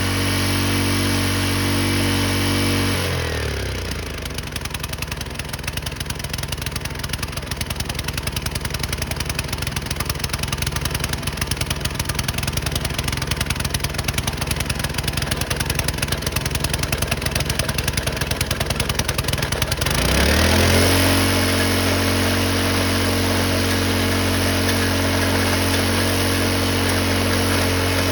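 Rock drilling rig's engine running steadily, dropping in speed about three seconds in as the rock drill starts hammering with rapid, continuous impacts. The hammering stops near twenty seconds in and the engine speeds back up to a steady run.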